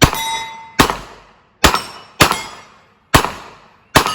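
Revolver fired at steel targets, six shots spaced roughly 0.6 to 0.9 s apart, each with a short echoing decay and a thin metallic ring after some of them.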